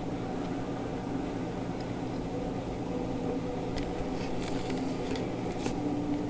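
A steady low mechanical hum with a few steady pitched tones in it. A scattering of short, sharp clicks comes between about four and six seconds in.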